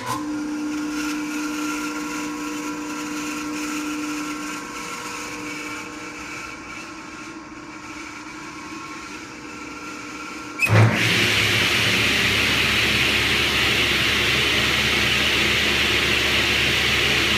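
Rotary phase converter switched on with a click and humming steadily. About ten seconds later the Powermatic 66 table saw's three-phase motor is switched on with a thump and the saw runs up to a louder, steady whir.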